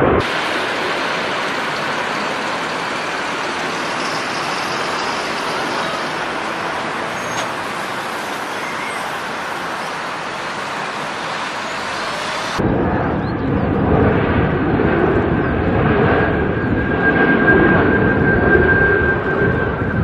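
Jet aircraft engine noise from two joined recordings: a steady rushing roar, then after a sudden cut about twelve seconds in, a deeper rumble with a steady high engine whine coming in a few seconds later.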